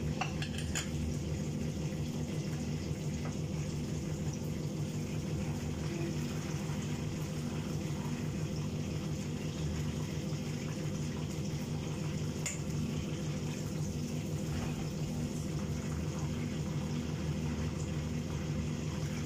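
Chicken pieces deep-frying in a wok of hot oil, a steady bubbling sizzle over a steady low hum, with a sharp metal clink or two from the skimmer against the wok.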